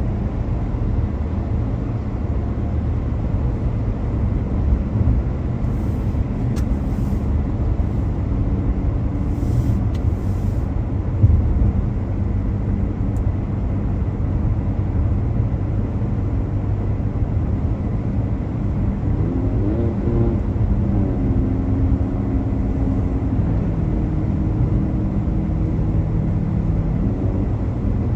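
A car driving: a steady low rumble of engine and tyre noise, with the engine note rising about two-thirds of the way through as the car speeds up.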